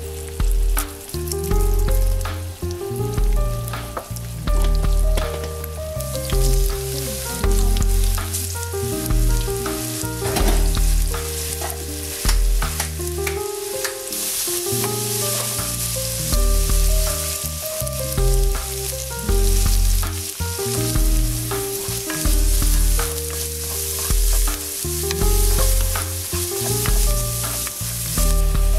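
Sliced garlic and dried chilli sizzling in olive oil in a frying pan. The sizzle grows brighter about six seconds in and again about halfway through, and near the end a wooden spatula stirs it. Background music with a steady, repeating bass pulse plays along.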